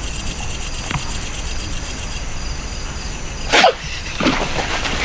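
Night insects chirping steadily in a fast even pulse, cut across by a few short cries that fall in pitch, the loudest about three and a half seconds in.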